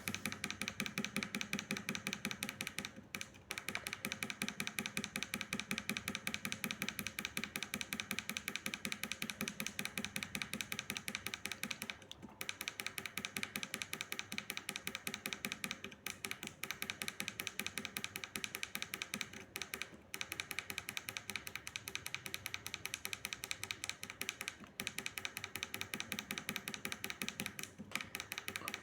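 Tactile micro switches (tact switches) pressed over and over by finger, their metal snap domes giving a fast, steady run of clicks with brief pauses every few seconds. The repeated presses work sprayed WD-40 into the switches to clear dust and oxidation from the contacts.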